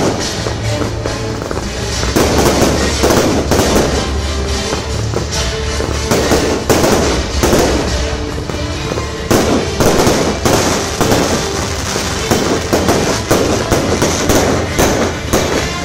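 Aerial fireworks bursting in rapid succession: many bangs overlapping into a continuous barrage.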